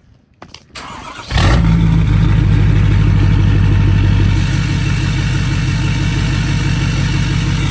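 Pickup truck engine starting with a few clicks, then catching about a second in. It runs at a fast idle for about three seconds, then settles to a slightly quieter, steady idle.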